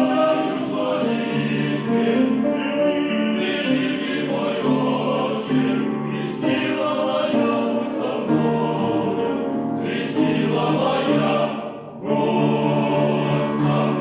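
Men's choir singing a hymn in held, full chords that change every second or so, with a short pause between phrases just before twelve seconds in.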